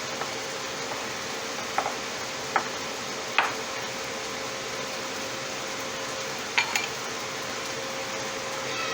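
Dishes and kitchen utensils clinking lightly, about five separate clinks, over a steady hum.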